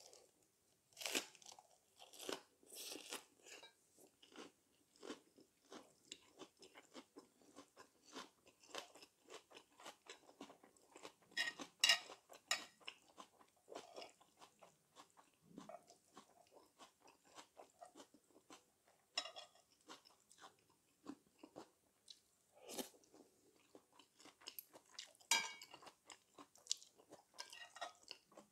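A person chewing a mouthful of Little Gem lettuce wrapped around dak galbi: a steady run of crisp crunching and chewing, with louder crunches every few seconds.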